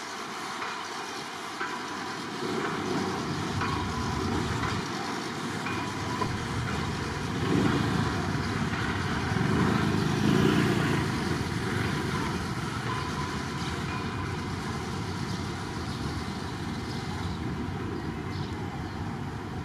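A train passing on the line, a steady rumble that builds to its loudest about halfway through and then eases off.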